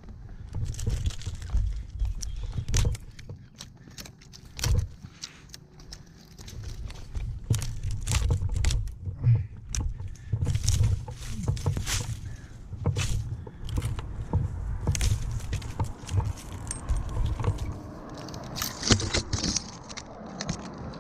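A climber's metal hardware, carabiners and gear clinking and jingling in many short, irregular clicks and scrapes as he moves up the tree, over a low rumble of handling or wind on the microphone.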